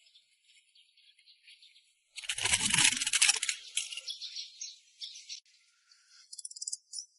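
A loud, rough scraping about two seconds in, lasting about a second and a half, then lighter scratching and a short, quick rattle near the end.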